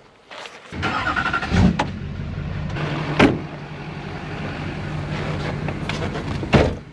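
A vehicle's engine running with a steady low hum that comes in abruptly under a second in, with a few sharp knocks or clunks over it, the last near the end.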